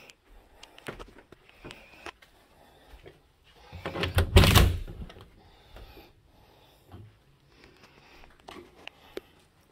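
Handling noise from a handheld camera being carried through rooms: scattered light clicks and knocks, with one loud rubbing scrape about four seconds in.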